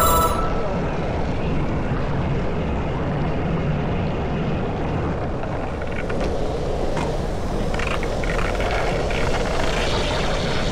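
Steady roar of wind and hard wheels rolling over rough asphalt as an electric rollerblade suit skates downhill at speed. A short electronic chime sounds right at the start.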